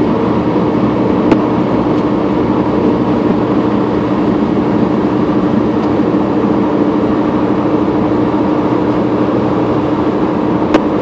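Steady road and engine noise of a car driving on a highway, heard from inside the car, with a constant hum. Two short sharp clicks, one about a second in and one near the end.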